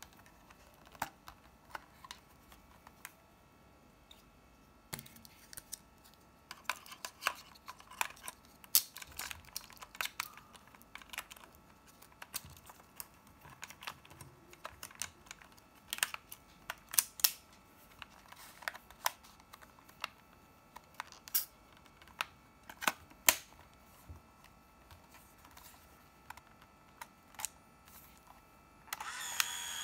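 Plastic body of a Minolta Riva 100AF compact 35mm film camera being handled: irregular sharp clicks and knocks as its back door is opened and closed and a film cartridge is handled. Near the end the camera's small motor starts a steady whir.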